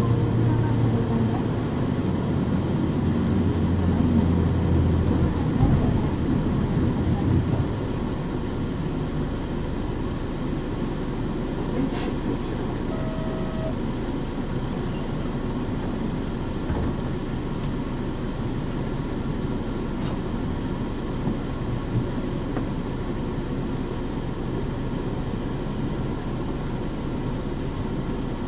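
Running sound of a Nissan Diesel KC-UA460HSN one-step city bus with a Fuji Heavy Industries 7E body: the diesel engine drones with a strong low hum for the first seven seconds or so, then eases off to a quieter, steady rumble of road and cabin noise. A short electronic tone sounds about 13 seconds in.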